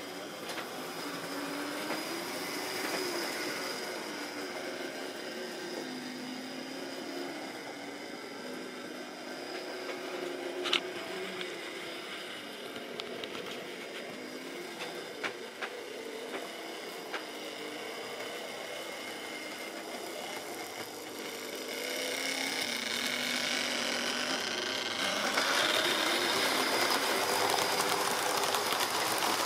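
Model railway train running on the layout: the locomotive's small electric motor whines and hums, with scattered clicks from wheels over rail joints and points, including one sharp click. It grows louder from about two-thirds of the way in as the train comes close and passes.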